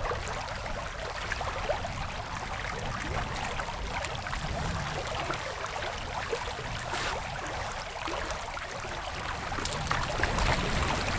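Shallow creek water running steadily over a riffle around wading legs.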